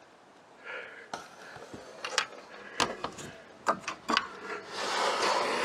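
A rigid solar panel knocking several times against the trailer's aluminum roof as it is set down, followed from about five seconds in by a longer rushing scrape as it is slid across the roof.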